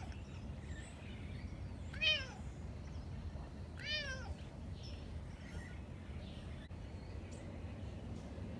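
A cat meowing. The tail of one meow comes at the start, then two more meows about two and four seconds in, each rising and then falling in pitch, the first of the two the louder.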